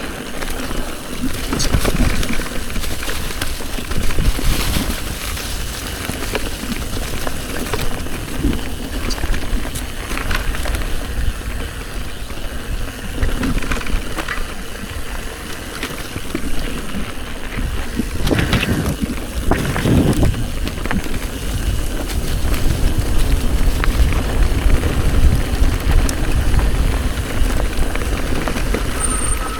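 Mountain bike riding a trail: tyres running over dirt and stones, wind buffeting the microphone, and the bike knocking and rattling over bumps.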